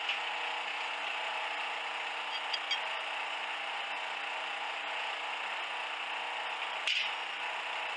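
Steady background hiss with no tool running, and one sharp knock about seven seconds in.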